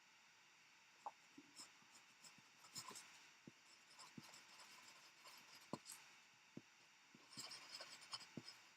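Near silence: faint room tone with scattered, irregular small clicks and brief rustles.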